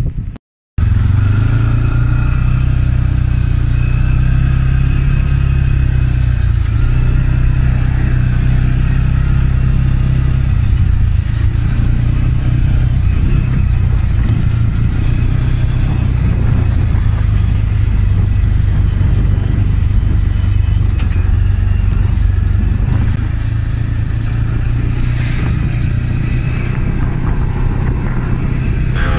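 ATV engine running steadily as it rides along, a loud low drone whose pitch drops a little about ten seconds in.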